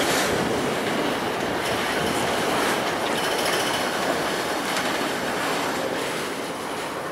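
Freight train's autorack cars rolling past below: steady, loud wheel-on-rail rumble and clatter. A faint high wheel squeal runs for a second or so about three seconds in.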